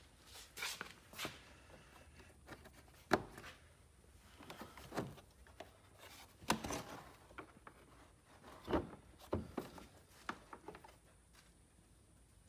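Scattered light clicks and knocks of hard plastic being handled: push-pin fasteners pressed home into a Can-Am Defender's plastic front fender panel. A sharp click about three seconds in is the loudest.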